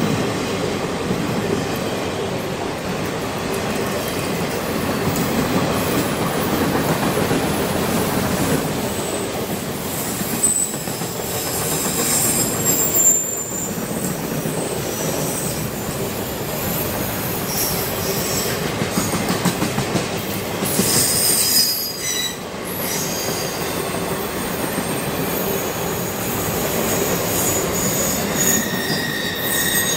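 Freight train of autorack cars rolling past a level crossing: a steady rumble of wheels on the rails, with high-pitched wheel squeals. The squeals are loudest about 11 to 13 seconds in and again about 20 to 23 seconds in.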